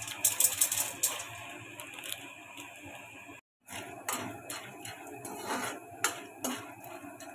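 Dry popcorn kernels stirred with a metal spatula in a kadhai after oil is poured over them: scraping and a scatter of clicks of kernels and metal against the pan. The sound drops out completely for a moment about halfway through.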